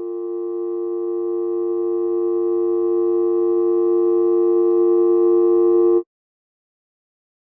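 Telephone dial tone: a steady, continuous two-note hum that grows gradually louder, then cuts off suddenly about six seconds in.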